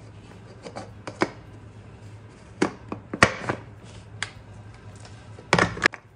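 Irregular clicks and knocks of kitchen containers and utensils being handled, about seven in a few seconds, with two louder ones near the end, over a faint steady low hum.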